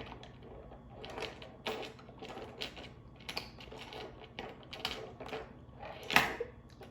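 Irregular small clicks and scrapes of a handcuff key held in the mouth, worked against a pair of handcuffs, about one or two a second, with a sharper click a little after six seconds.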